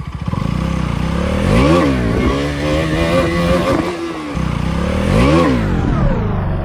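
KTM Duke 200's single-cylinder engine revved hard under the rider's throttle, its pitch shooting up and falling back twice, with a steady high-revving stretch between and a short drop in revs near the middle.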